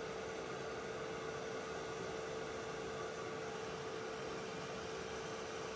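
Embossing heat gun running steadily, a constant motor whine over the rush of its blown air, as it melts green embossing powder on card.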